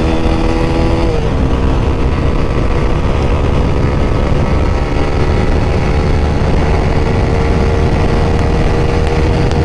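Motorcycle engine running steadily at highway speed in fourth gear, gently accelerating, heard under heavy wind rush from the rider's seat.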